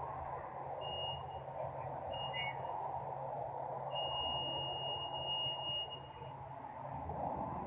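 Steady industrial machinery noise, a constant rumbling hum. Over it a thin high tone sounds briefly twice, then holds for about two seconds.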